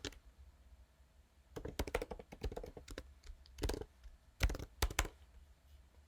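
Typing on a computer keyboard in a few short bursts of keystrokes, stopping about five seconds in.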